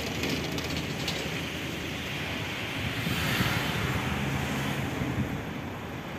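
Passenger multiple-unit train running past at a distance: a steady rushing noise that swells about halfway through, with a low hum near the end and wind on the microphone.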